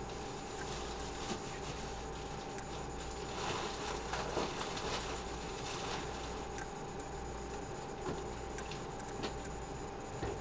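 Rummaging through a refrigerator: containers and packages being shifted on the shelves, with light knocks and rustles that come thickest about halfway through, over a steady hum.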